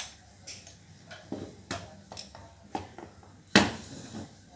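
Metal clicks and knocks as a Butterfly sewing machine head is handled, then one heavy knock a little over three and a half seconds in as the head is tipped back down upright onto its base.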